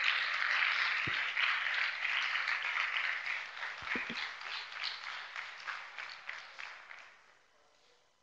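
Audience applauding, the clapping thinning out and dying away about seven seconds in.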